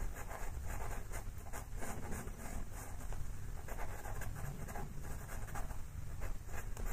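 Pastel pencil scratching over textured pastel paper in many short, quick strokes as the colour is filled in, over a low steady background hum.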